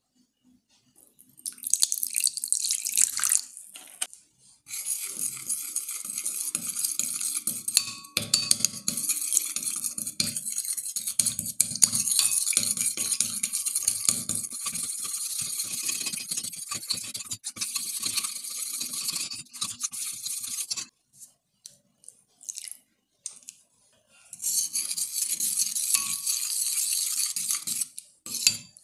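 Water poured from a plastic bottle into a small glass bowl for a couple of seconds, then a plastic spoon stirring and scraping round the glass bowl, mixing toothpaste and water, with many small clicks, for about fifteen seconds. After a few seconds of scattered taps, another stretch of stirring comes near the end.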